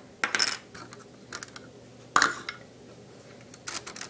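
Plastic Lego bricks clicking and knocking as sections of a brick-built castle are pulled off and set down by hand: a few short separate clatters, the loudest about two seconds in.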